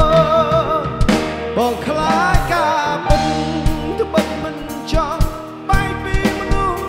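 A Khmer song played live by a band: a male singer holding notes with vibrato over electric guitar and sustained chords, with regular drum-kit hits.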